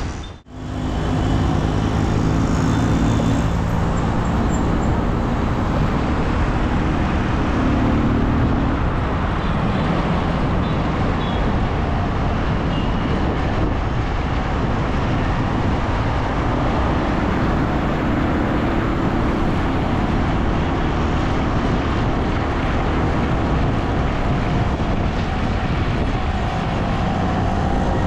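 Steady rush of wind and road noise from riding a two-wheeler through city traffic, with engine hum from the surrounding vehicles. The sound cuts out briefly about half a second in.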